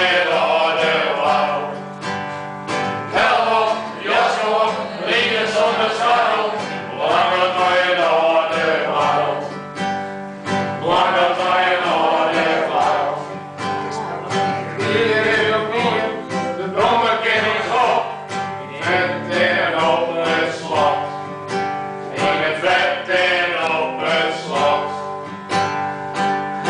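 Acoustic guitar played live with voices singing along to it.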